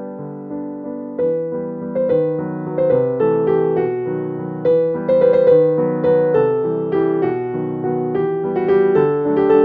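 Background piano music: a gentle melody of struck notes over lower chords, getting a little louder about a second in.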